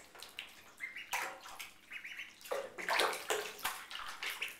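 Indian runner ducklings splashing in shallow bathwater in a bathtub, with small irregular splashes and sloshes and a few louder splashes about a second in and around three seconds in.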